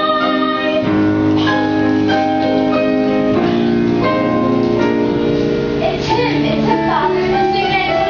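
Stage musical's backing music: held chords that change about a second in, with a singer's voice wavering over them in the second half.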